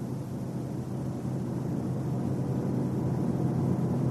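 Car driving at highway speed: a steady rumble of road and engine noise that grows slowly louder.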